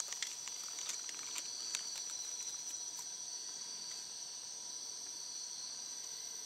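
Night insect chorus, crickets or katydids trilling steadily in several high pitches at once, with a few faint clicks in the first two seconds.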